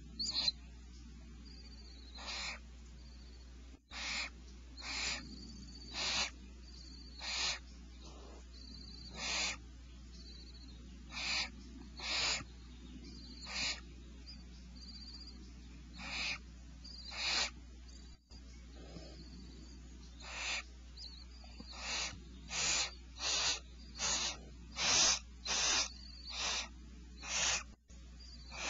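Barn owls in a nest hollow giving a long series of harsh hissing calls, each under half a second, about one a second, the snoring food-begging call of barn owl chicks.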